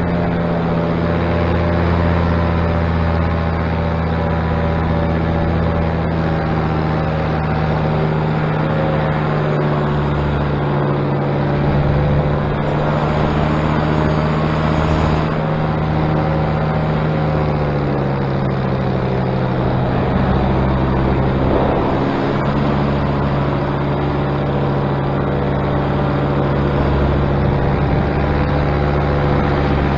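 Paramotor engine running steadily at flight power, its propeller humming, with the note dropping slightly about eighteen seconds in. The propeller is running after one tip of its new prop tape sounded to come off, which the pilot takes for a lost tape end.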